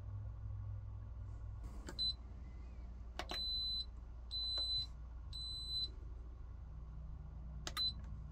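Instant Pot Duo pressure cooker's control panel beeping as its buttons are pressed: a short beep, then three longer beeps about a second apart, then another short beep near the end, with a click of the button at some presses. The cooker is responding normally, its C6L error cured by the new switch.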